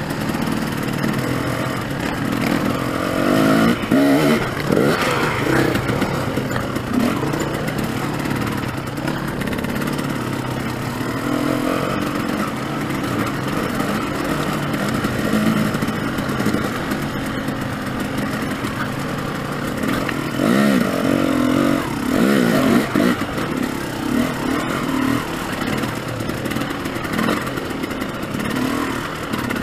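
Dirt bike engine running as the bike picks its way over rocky ground, the throttle rising and falling, with stronger revs about four seconds in and again around twenty seconds in.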